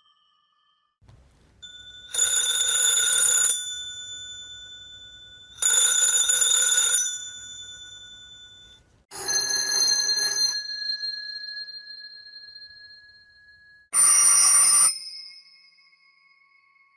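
Old-fashioned telephone bell ringing: two rings of about a second and a half each, three and a half seconds apart. Then a slightly different ring follows, and a short burst near the end. Each ring leaves the bell's tone fading away behind it.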